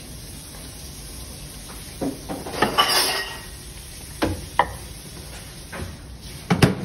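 A ceramic plate of rotis being handled and set into a microwave oven: a brief rustle, then several light knocks and clinks of the plate, the loudest a quick double knock near the end.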